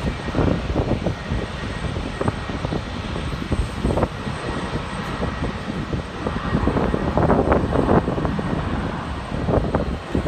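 Jet airliner engines running, a steady rushing noise that swells a little between about six and eight seconds in, with gusts of wind buffeting the microphone.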